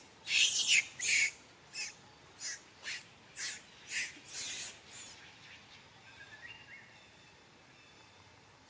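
Young long-tailed macaque screaming in distress while an adult handles it: short, shrill screams about two a second. The loudest come first, and they die away about five seconds in.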